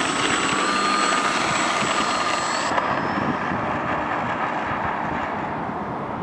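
Radio-controlled model airplane's motor and propeller running at a steady whine on its takeoff roll, growing fainter as the plane moves away.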